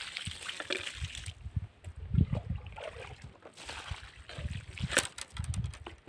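Water pouring from a plastic jug onto seedlings and sloshing in a bucket as the jug is dipped back in, with a sharp click about five seconds in.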